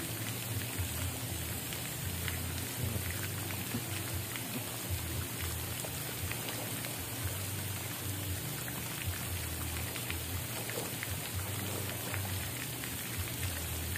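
Steady patter of falling and splashing water, with many small drips and splashes scattered through it.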